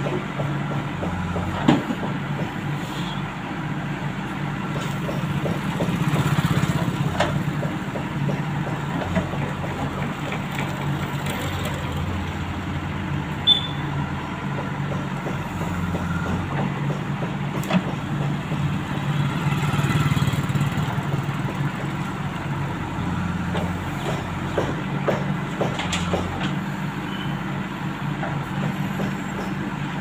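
JCB backhoe loader's diesel engine running as its backhoe arm digs and loads soil, the engine note swelling and easing with the work twice. A few sharp knocks stand out above it.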